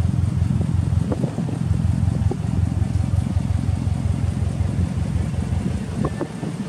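Subaru Impreza WRX (GDA) EJ20 turbocharged flat-four idling steadily through an aftermarket muffler, with an even low exhaust pulse.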